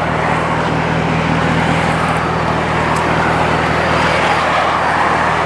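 Cadillac CTS-V wagon's supercharged V8 running steadily at idle, a low even engine note.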